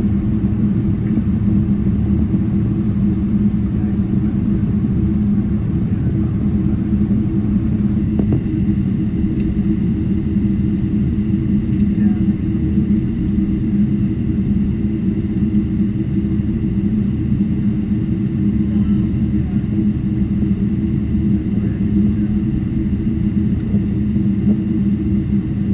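Steady low rumble and hum inside an airliner's cabin as it taxis after landing, with a faint high whine joining in partway through.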